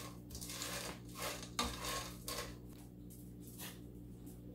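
Skittles candies, still hard, rattling and scraping against the inside of a cooking pot as they are stirred with a silicone spatula: a quick run of strokes in the first couple of seconds, then one more near the end.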